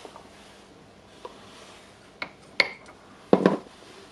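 Metal hammer-drill parts being handled and set down on a workbench during reassembly: a few light clinks and knocks, one with a short metallic ring about two and a half seconds in, and a louder clatter of knocks near the end.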